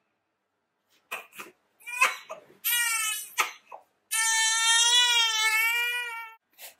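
Newborn baby crying: after about a second of quiet, a few short fussing cries, then a falling cry, then one long wavering wail of about two seconds.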